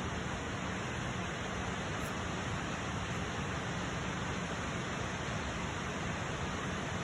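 Steady rushing of a waterfall: an even, unbroken wash of water noise.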